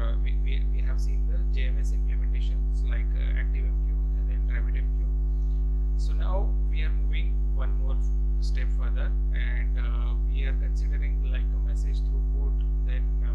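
Steady electrical mains hum in the recording, a low constant drone with overtones. Faint, brief higher sounds come and go above it.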